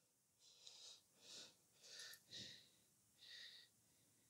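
Near silence, with only a few faint, short soft sounds.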